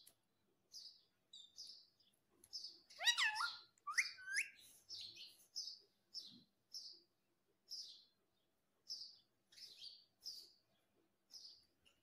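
Rose-ringed parakeet (Indian ringneck) giving short, high chirps again and again, with a few louder calls that sweep up and down in pitch about three to four seconds in.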